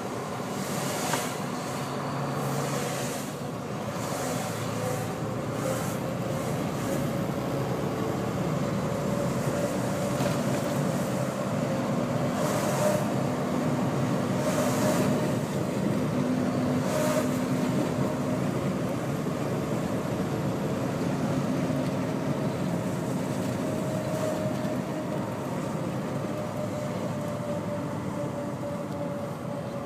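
Inside the cab of a Volvo VN780 semi truck climbing uphill: the diesel engine runs steadily under load over road noise. Several brief whooshes come as oncoming trucks pass, the clearest in the middle of the stretch.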